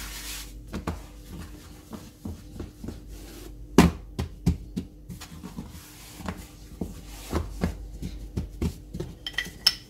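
Hands patting and pressing a slab of butter-layered pastry dough flat on a floured countertop: irregular soft thumps, the loudest about four seconds in. A short brushing hiss at the start as flour is swept across the counter.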